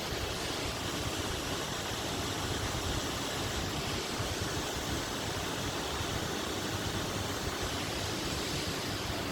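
Steady rushing roar of a large waterfall, the Cascata delle Marmore, its water pouring down in a constant even hiss.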